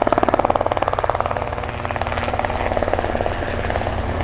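Radio-controlled model aircraft's motor and propeller buzzing in flight, a steady, rapidly pulsing drone.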